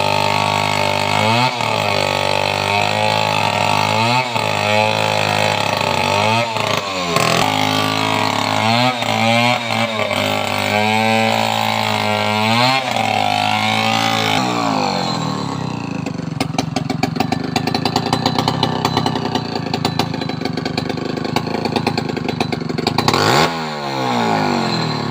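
Two-stroke chainsaw cutting into a coconut palm trunk, running fast with its pitch dipping every second or so under load. About fourteen seconds in the engine winds down to a rough, ticking idle, and it is briefly revved once near the end.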